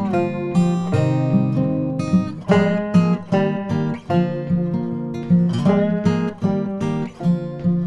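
Background music: strummed and plucked acoustic guitar in a country or bluegrass style.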